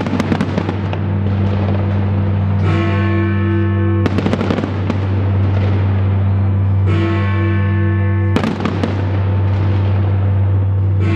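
Fireworks display: clusters of bangs and dense crackling, about every four seconds, over loud music with a steady low bass and held chords between the bursts.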